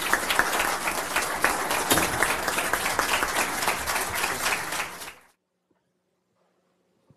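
Audience applauding: dense, steady clapping that cuts off suddenly a little after five seconds in, leaving near silence.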